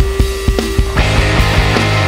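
Rock music with a steady drum beat and guitar.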